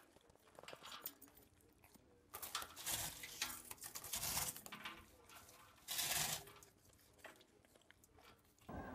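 A dog biting and crunching mouthfuls of snow in short, irregular bursts, the loudest about six seconds in.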